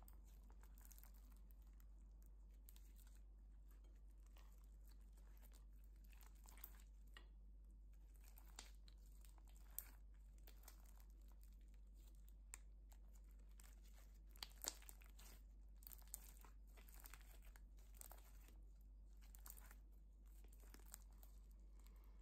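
Clear slime packed with foam beads being squished and stretched by hand, giving quiet, irregular crackling and sticky popping clicks that come thickest a little past halfway through. A steady low hum runs underneath.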